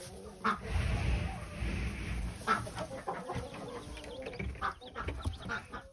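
Chickens clucking, with short scattered calls, over a low rumble on the microphone in the first couple of seconds.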